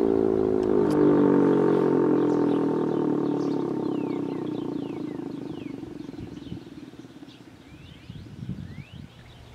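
Sentry 7V8-B outdoor warning siren winding down at the end of its test, its tone falling steadily in pitch and fading out over about six seconds. Short bird chirps come through as it dies away.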